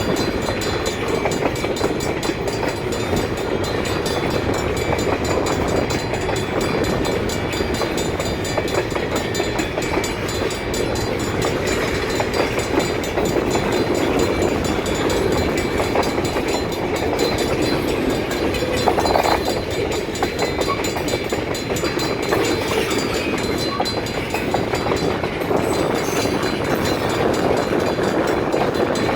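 Escanaba & Lake Superior freight train rolling past: a steady rumble of steel wheels on the rails with continuous fine clicking.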